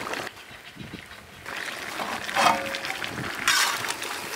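A short animal call about halfway through, the loudest sound, over a simmering iron pan of curry. Near the end a steel ladle scrapes and stirs in the iron kadai.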